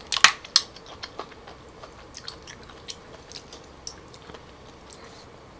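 Clam shells clicking against each other and the plate as they are picked through by hand. Two sharp clicks come just after the start, then scattered faint clicks.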